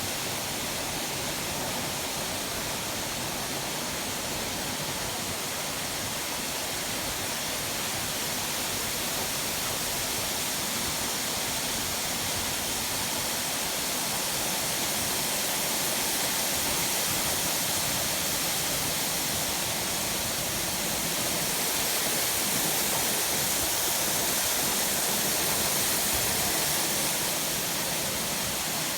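Waterfall: a steady, dense rush of falling water, a little louder for a stretch in the second half.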